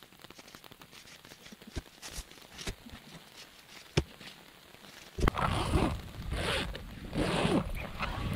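Faint rustling and light knocks of camping gear being handled on a tent floor, then from about five seconds in a zipper pulled in three or four quick strokes, the loudest sound.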